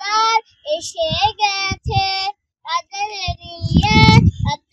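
A young girl singing a Bengali Islamic gazal unaccompanied, in short sung phrases, with bursts of low rumble beneath her voice that are loudest near the end.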